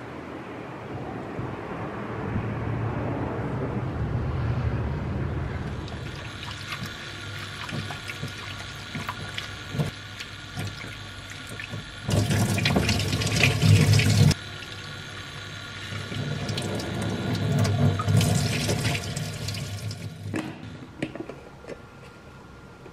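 Kitchen tap running into a glass bowl of lettuce leaves as they are rinsed by hand: splashing water in two spells, a loud one of about two seconds around the middle and a longer, softer one a few seconds later. Faint background music underneath.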